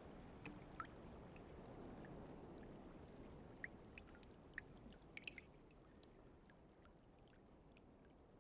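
Faint water drops dripping in a wet forest, single drops ticking at irregular moments, a few in quick succession about five seconds in, over a soft low background hush that fades slowly.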